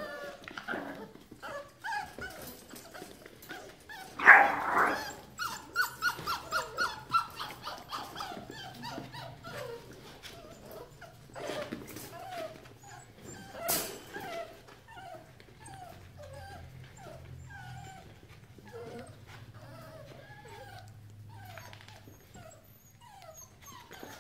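Young pit bull puppies crying and whining in many short, high calls. A loud cry comes about four seconds in, followed by a quick string of yips, about four a second. Softer whines with a falling pitch follow.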